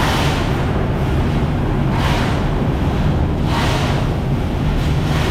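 Farm machinery running: a steady low engine drone under a rushing hiss that swells and fades about every one and a half seconds.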